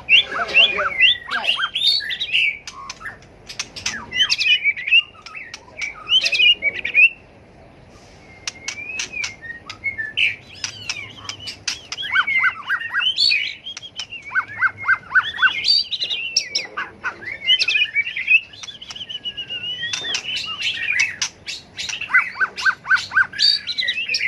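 White-rumped shama singing a loud, varied song of gliding whistled phrases, broken by many sharp clicks and quick runs of short repeated notes, with a brief lull about a third of the way through.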